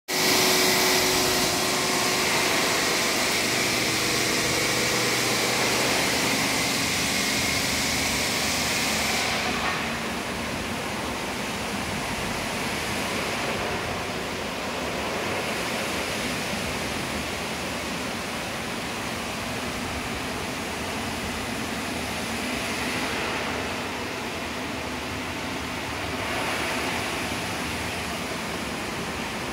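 Steady machine noise with a low hum and a few steady tones for the first ten seconds or so. It then settles, a little quieter, into an even rushing noise.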